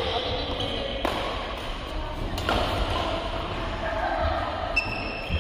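Badminton rally: two sharp racket strikes on a shuttlecock about a second and a half apart, each ringing briefly in a large hall. A short high squeak follows near the end.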